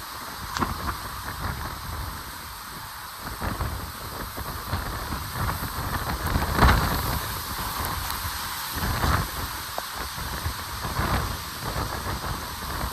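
Hurricane wind and torrential rain: a steady hiss of rain with gusts buffeting the microphone in irregular surges, the strongest about halfway through.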